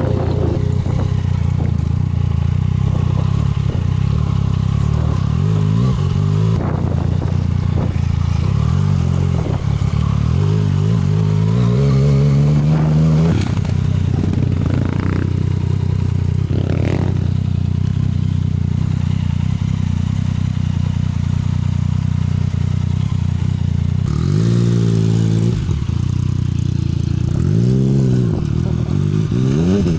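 Yamaha MT-09's three-cylinder engine through an Akrapovic exhaust, ridden with the revs climbing and dropping again several times, with one long climb in the first half and quicker blips near the end.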